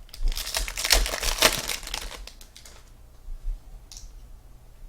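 Crinkling and tearing of a trading-card pack wrapper being ripped open and handled, dense for about two seconds, then fading to a few small rustles.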